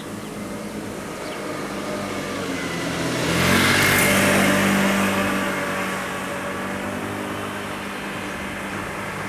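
A car driving past: engine hum and tyre noise swell to their loudest about four seconds in, then fade away.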